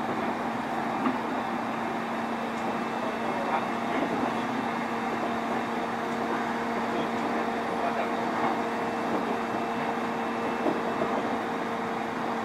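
JR East E531 series electric train running at a steady speed, heard from inside its motor car MoHa E530-7. A steady hum at an unchanging pitch sits over the rolling rumble of wheels on rail, with a few sharp clicks.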